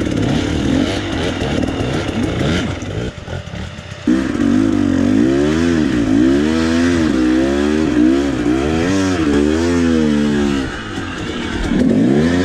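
KTM dirt bike engine revving hard on a steep rocky hill climb. The engine note surges up and falls back over and over, about once a second, from around four seconds in as the throttle is worked, then drops off briefly near the end.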